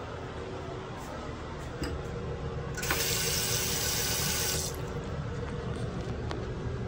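Bathroom sink faucet turned on with a click, water running into a wall-hung porcelain basin for about two seconds, then shut off abruptly. A steady low hum runs underneath.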